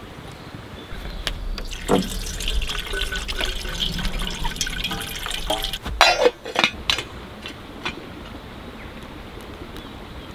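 Water running from a camper trailer's water-tank tap into a metal billy can for about five seconds, then a few sharp knocks from the billy being handled, the loudest sounds here.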